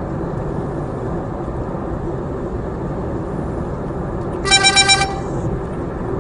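Steady road and engine noise inside a car cruising at highway speed, with a quick burst of four short, high, horn-like beeps about four and a half seconds in.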